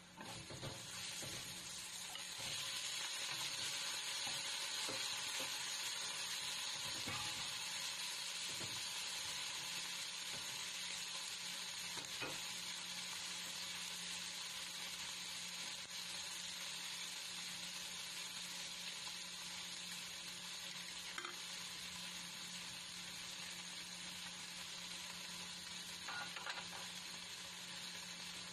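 Sliced green bell pepper and mushrooms sizzling in hot oil in a nonstick wok, with a steady frying hiss that starts suddenly and grows louder over the first couple of seconds. A spatula scrapes and taps the pan a few times as the vegetables are stirred.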